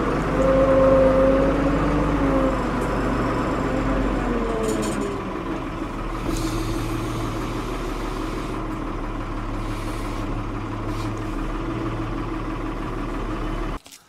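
Ford 550 backhoe's diesel engine running under load while the loader pulls at the building. Its note drops about four seconds in and then runs steadily, with a few faint clanks of metal.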